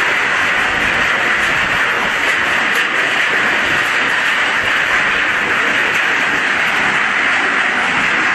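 Scrap steel crusher running: a loud, steady machine noise without let-up, the sound of the crusher working.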